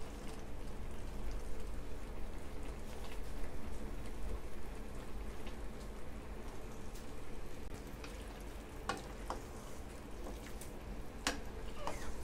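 Minced meat and sliced onions frying in oil in a steel kadhai, sizzling steadily with faint scattered pops. Near the end come a few sharper clicks and scrapes as a wooden spatula stirs the mince in the pan.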